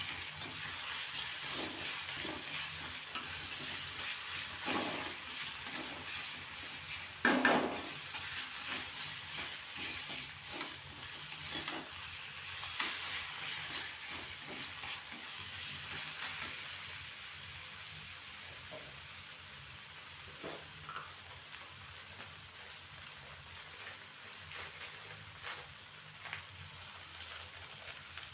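Macaroni with vegetables sizzling in a pan while a spoon stirs and scrapes it, with a sharper knock against the pan about seven seconds in. The sizzle and stirring get quieter in the second half.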